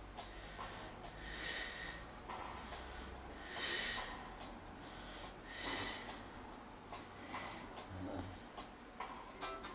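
A man snoring in deep sleep, one breath about every two seconds, with two louder snorting snores about four and six seconds in.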